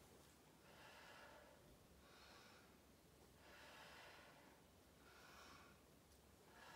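A woman's faint breathing, about five soft breaths in and out at an even pace, as she works through a Pilates clam exercise.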